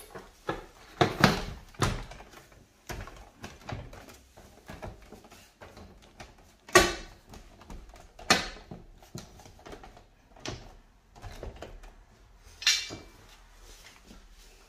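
Plastic flap of a Ferplast Swing dog door pushed by hand and swinging, clacking against its frame in a series of irregular knocks, a few of them much louder than the rest.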